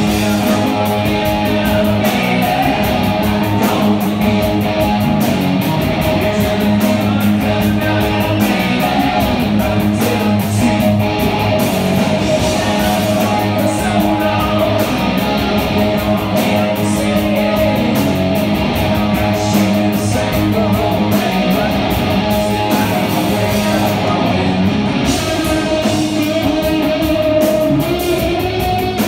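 Live rock music at full volume led by electric guitar, with sustained notes.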